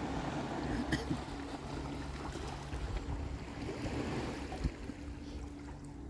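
Small ocean waves washing and lapping against shoreline rocks and tide pools, with a faint low hum that comes and goes.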